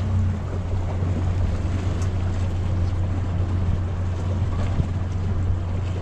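Motorboat engine running steadily with a low drone, under a haze of wind and water noise.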